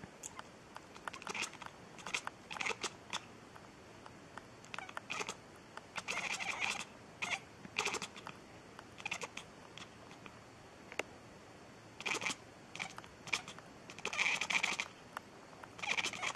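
A domestic cat making runs of short, clipped chirping calls with its mouth opening and closing. There are a couple of longer calls, about six seconds in and again near the end.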